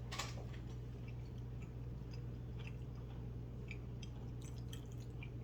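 A person chewing food with the mouth close to the microphone: small wet clicks and crunches, one sharper click just after the start, over a steady low hum.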